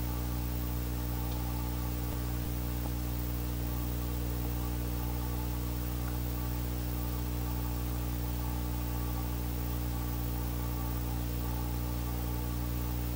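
Steady electrical hum under a constant hiss, with two faint clicks a little over two seconds in.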